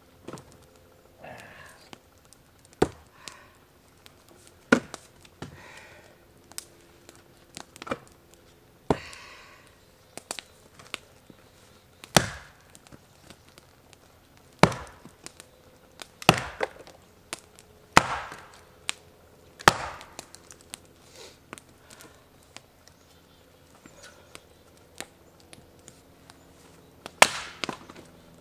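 Splitting axe striking and splitting rounds of frozen firewood on a chopping block: sharp, irregular cracks of the blade biting and the wood bursting apart, with pauses as the next round is set up. Lighter knocks of split pieces falling come in between.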